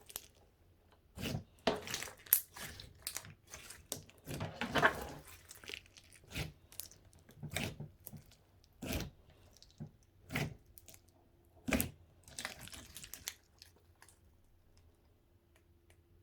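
Clear slime with mixed-in extras being worked by hand, giving a string of short pops and crackles about once a second that die away near the end.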